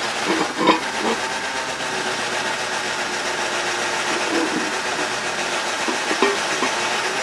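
Steady mechanical whir of a machine running in the shop, with a few light metal clinks as a steel end plate is slid into place on the welded steel engine block.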